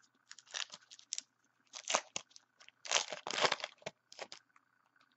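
Foil trading-card pack wrapper being torn open and crinkled by hand, in a few irregular rasps, the longest about three seconds in.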